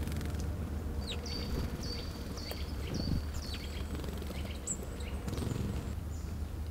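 A small woodland songbird calling: a run of about five high repeated notes, roughly two a second, with a few scattered single calls later, over a steady low rumble.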